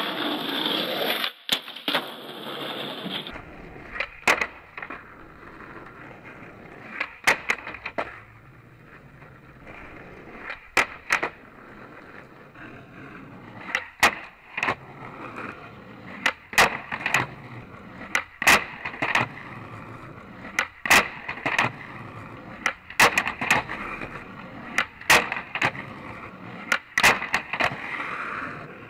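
Skateboard rolling on asphalt with dozens of sharp clacks as the board pops, lands and hits a low wooden pallet grind box, its trucks grinding along the wood. The first few seconds carry a louder rushing noise that cuts off suddenly.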